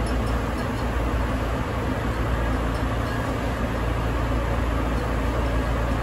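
Steady running noise inside a Sapporo Municipal Subway Toho Line car under way between stations, a continuous low rumble from the rubber-tyred train on its guideway, with no track clicks.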